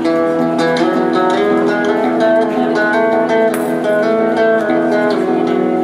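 Acoustic guitar picked in a quick run of notes over a steady didgeridoo drone, the two played at once by one musician.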